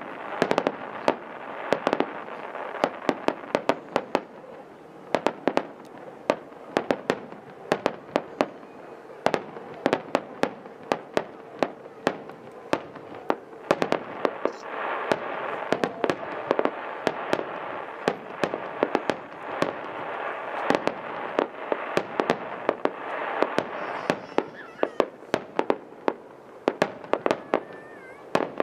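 Finale of an aerial fireworks display: shells burst in quick succession, dozens of sharp reports coming in clusters, over a continuous noisy wash between them.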